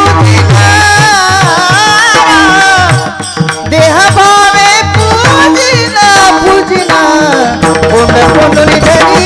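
Kirtan music: a voice sings a wavering, drawn-out melody over regular low hand-drum strokes. The drumming and the level dip briefly about three seconds in.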